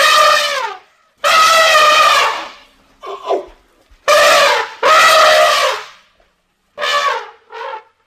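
Elephant trumpeting calls used as creature sound effects for a Platybelodon: a run of about seven loud, brassy blasts separated by short gaps, several of them falling in pitch. The longest is near the start of the second second, and the last two near the end are short.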